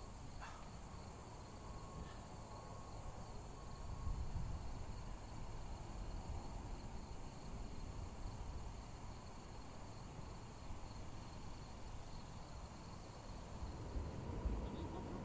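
Steady high-pitched insect chorus from the roadside grass and trees, with wind rumbling on the microphone that gusts louder about four seconds in and near the end.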